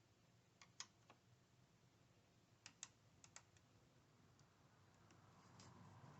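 Faint, irregular small metallic clicks of a 10 mm wrench working the nut on a car battery's negative terminal clamp, loosening it.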